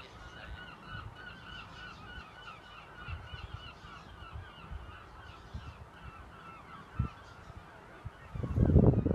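A flock of geese honking: many short calls repeated quickly and overlapping, dying away shortly before the end. Near the end comes a louder burst of low rumbling.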